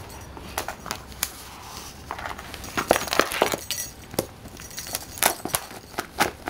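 A cat's small collar bell jingling, with claws clicking and scraping on a hardwood floor in irregular sharp taps, as the cat wrestles and kicks a stuffed kicker toy.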